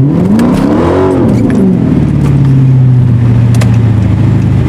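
Car engine accelerating hard. Its pitch climbs for about a second, then drops back and settles into a steady lower hum.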